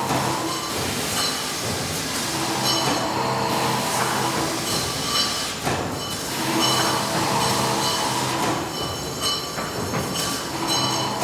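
Factory machinery running continuously: several steady tones under a rough mechanical noise that swells and eases every few seconds.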